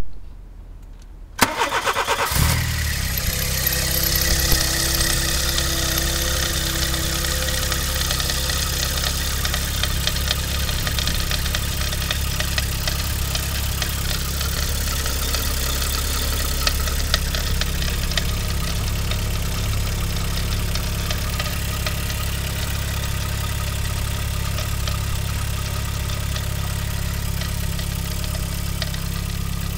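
VW Polo 86C's AAV four-cylinder petrol engine cranked on the starter for under a second, catching and settling into a steady idle. Over the idle runs an irregular rattling and ticking that comes with a cold start, which the owner wonders is piston slap.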